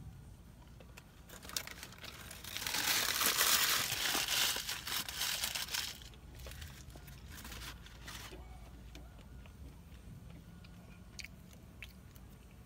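Paper food wrapper crinkling and rustling for about four seconds, with smaller crackles trailing off after it. Faint clicks of chewing follow.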